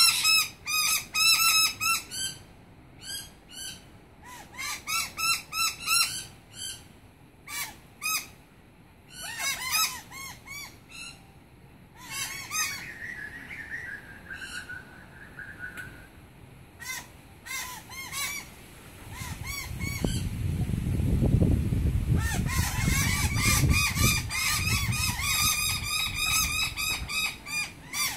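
A group of noisy miners giving their harsh alarm calls in fast repeated bouts, mobbing because a snake is near. A low rumble rises beneath the calls for several seconds after the middle.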